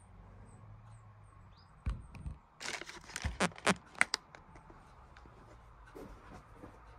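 Handling noise close to the phone: a knock about two seconds in, then a couple of seconds of crinkling and sharp clicks, fading to a few scattered clicks.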